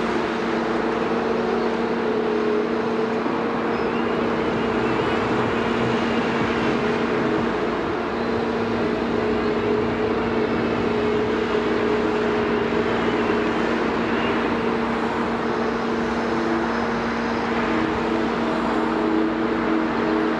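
Liebherr 946 excavator's diesel engine running steadily at a constant pitch.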